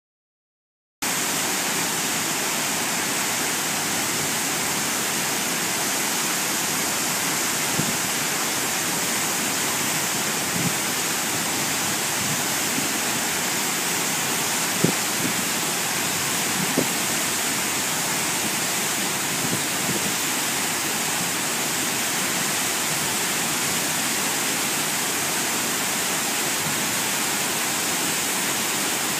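Harajiri Falls, a wide curtain waterfall, roaring as a steady, unchanging rush of falling water, strongest in the hiss range, with a few faint short ticks now and then.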